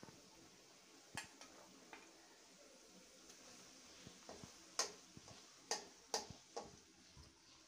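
A long-handled metal spoon stirring thick dal curry in a metal pot: a handful of light clicks and scrapes of the spoon on the pot, the sharpest in the second half, over a faint steady background.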